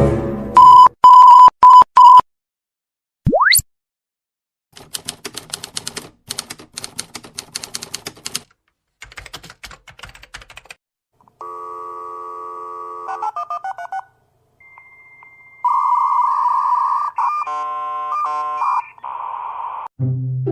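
A run of separate sound-effect clips. It opens with four short, loud beeps, followed by a quick rising whistle and several seconds of rapid typewriter-like clicking. It ends with electronic telephone-style tones and beeps.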